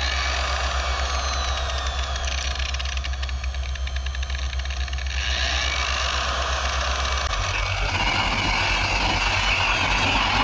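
Electric variable-speed buffer with a cutting pad running against a plastic headlight lens: a steady motor hum with a high whine that glides down early on. About seven seconds in, the motor's tone changes.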